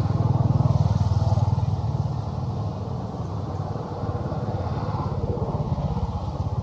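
An engine running steadily close by, a low pulsing rumble that is loudest in the first two seconds and then settles.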